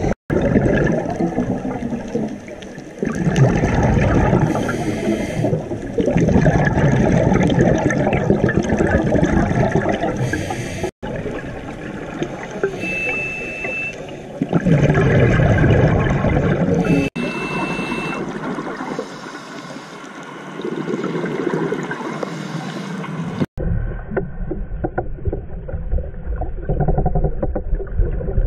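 Scuba diver's regulator breathing heard through an underwater camera housing: exhaled bubbles gurgling and rushing in surges a few seconds apart. Two short high beeps sound near the middle.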